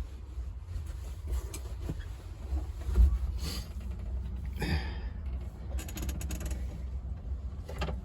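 Scattered knocks, creaks and rattles of a person squeezing into a small tractor's tight cab, over a steady low rumble.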